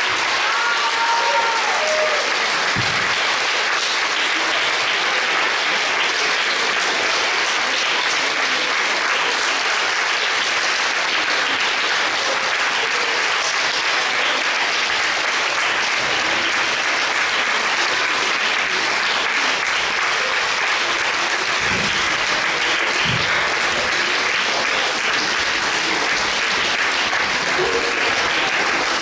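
Audience applauding steadily in a concert hall after an opera ensemble number, with a brief voice calling out over it in the first couple of seconds.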